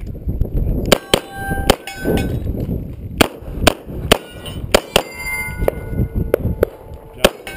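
A Beretta 92A1 pistol fired in a rapid string, starting about a second in. Steel targets ring after many of the hits.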